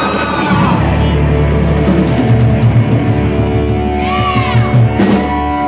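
Live rock band playing loudly: electric guitars, bass and drums with singing, and a high note arching up and down about four seconds in.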